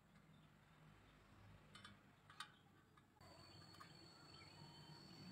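Near silence: faint background with a couple of light clicks about two seconds in, and a faint steady high tone joining a second later.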